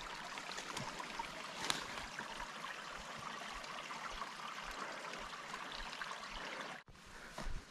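A small trickle of water running steadily into a lake, as a light, even splashing hiss. It drops away suddenly near the end.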